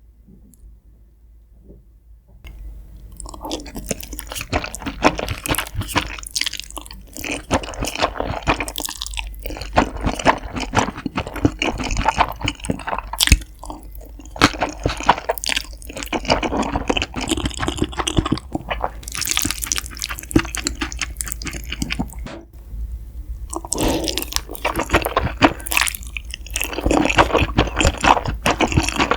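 Close-miked eating sounds: wet chewing with smacking clicks and some crunchy bites, starting about two seconds in.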